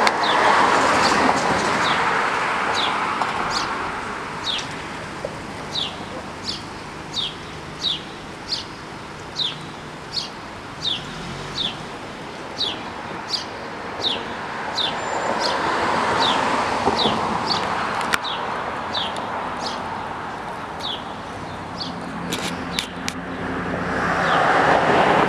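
A car passing close by and driving off, over steady traffic noise, with more swells of passing traffic later on. Throughout most of it a short high chirp, falling in pitch, repeats about every two-thirds of a second, then stops about three-quarters of the way through.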